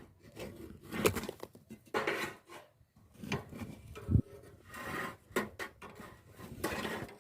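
Irregular knocks and scraping, as of wood and utensils being handled, with one heavier low thump about four seconds in.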